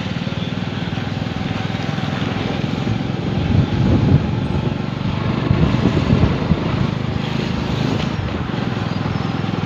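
Motorcycle engine running while riding along a street, its pitch shifting a little with the throttle, over steady wind and road noise.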